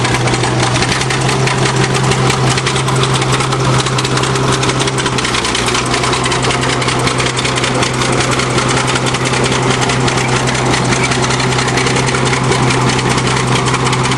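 Bulldozer's diesel engine running steadily at a constant speed, with a fast, even clatter.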